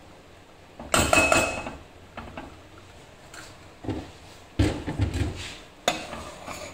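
A metal kitchen utensil knocking and scraping against a stainless steel pot: a loud clatter with a brief metallic ring about a second in, then a heavier run of knocks about five seconds in.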